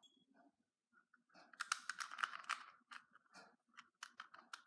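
Plastic Rubik's cube clicking and clacking as a face is turned: a quick run of clicks about a second and a half in, then scattered single clicks.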